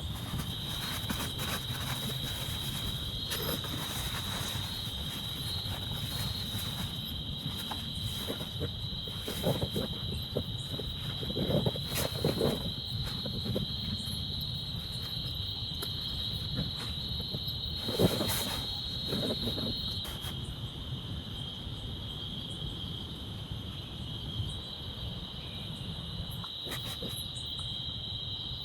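Crickets chirring in a steady, unbroken high-pitched chorus, over a low rumble of background noise. A few sharp knocks cut in, the loudest about eighteen seconds in.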